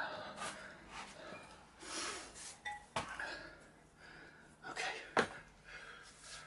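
Metal tyre lever clinking and knocking against a motorcycle wheel rim, with rubber scraping, as an old tyre is worked off the rim by hand. Several sharp knocks, the loudest about five seconds in.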